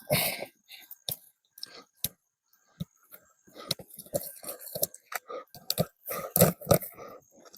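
Irregular clicks, rattles and rustles of hands handling small hard parts, working something loose while hooking up a camera junction box. The clicks come in uneven clusters with short gaps between them.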